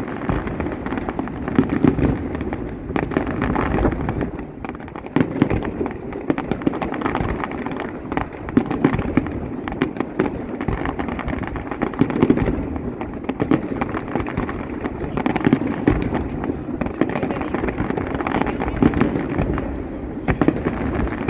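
Fireworks display going off without pause: a dense barrage of bangs and crackling firecracker reports, many per second, with louder single booms standing out now and then.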